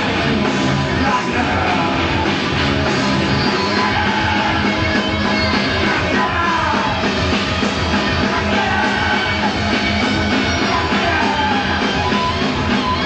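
Rock power trio of electric guitar, bass guitar and drums playing live and loud, with a steady driving beat.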